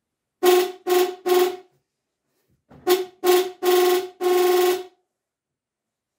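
Golf cart's electric horn beeping: three short honks, a pause, then four more, the last two held longer.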